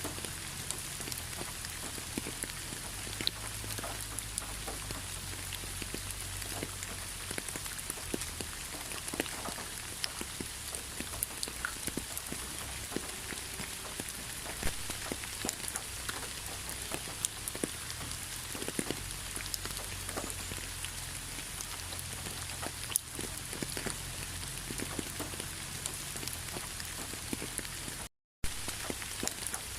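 Steady rain falling, with many separate drops striking close by over the steady hiss. The sound cuts out completely for a split second near the end.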